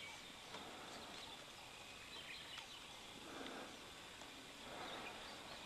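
Quiet outdoor background with a soft rustling noise a little past three seconds in.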